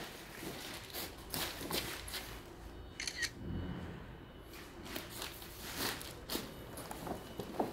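Scattered light clicks and rustles of hand handling, a hand touching and shifting stacked cherry wood veneer sheets.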